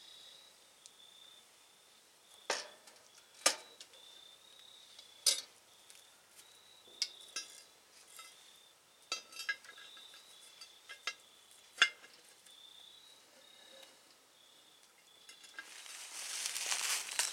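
Charcoal tongs clinking against a cast-iron Dutch oven lid and the briquettes on it as the coals are arranged: sharp metallic clinks every second or so, about ten in all. A faint, high pulsing chirp runs underneath, and a rustling hiss rises near the end.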